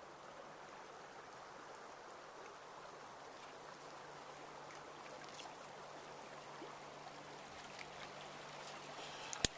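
Faint, steady rush of a river flowing over stones, with one short, sharp click near the end.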